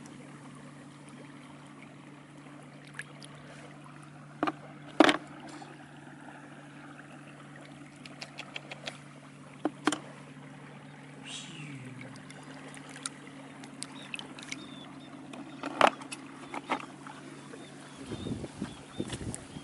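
A steady low mechanical hum, like a small motor, with a short falling whine about twelve seconds in; the hum stops near the end. Several sharp knocks and clicks stand out over it, the loudest about five and sixteen seconds in.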